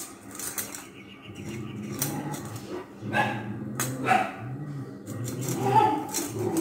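Dog growling low in repeated rumbles of under a second each, with a couple of short sharp barks about three and four seconds in.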